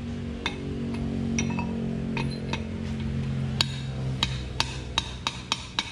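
A hammer strikes a steel drift rod to drive a broken 6203 ball bearing out of a motorcycle rear sprocket hub: sharp metal-on-metal blows. They are spaced out at first, then come faster, about three a second, from a little past halfway. The bearing is stuck and does not come free.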